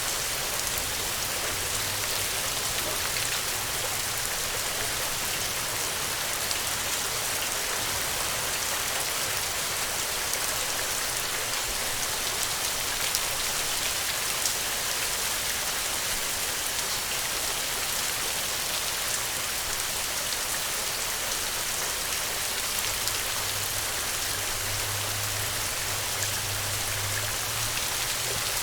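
Steady rain falling on the ground, an even hiss with scattered individual drop ticks.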